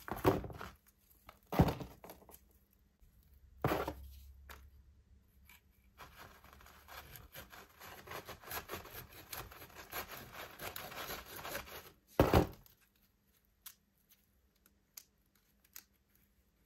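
Small hacksaw sawing through a dahlia tuber clump for about six seconds. A few loud thuds come before the sawing and one right after it.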